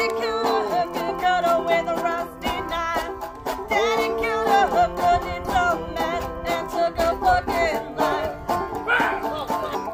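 Acoustic string band playing a country/bluegrass song: banjo and mandolin picking under a long, wavering sung melody.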